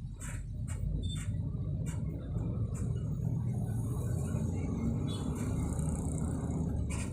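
Motor vehicle engine and road rumble that swells in at the start, holds steady for about seven seconds, then fades, with scattered sharp clicks over it.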